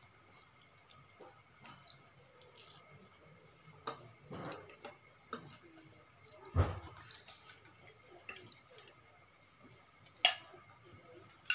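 Eating noises: soft chewing and slurping of noodles, with forks clicking and scraping on plates. A heavier knock comes about six and a half seconds in and a sharp clack near ten seconds, over a faint steady high whine.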